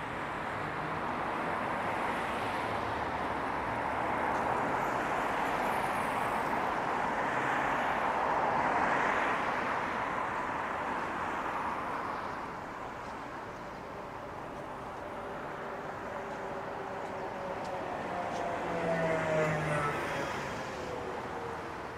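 City street traffic: a steady wash of passing cars and tyre noise that swells about a third of the way in. Near the end, a passing vehicle's whine falls in pitch.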